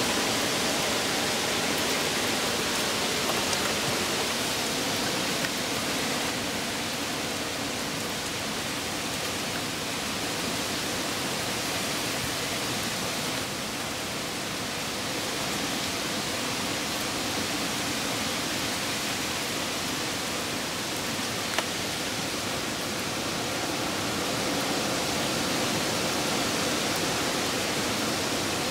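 Hurricane wind and heavy rain: a steady rush of wind-driven rain and gusts through trees that rises and falls a little. One brief tick about three quarters of the way through.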